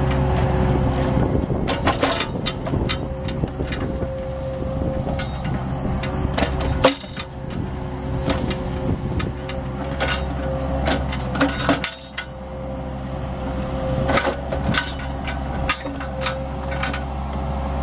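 Kubota KX61-2 mini excavator's diesel engine running steadily under a steady whine, while the boom and bucket work. Scattered clanks and knocks run through it, the sharpest about seven seconds in.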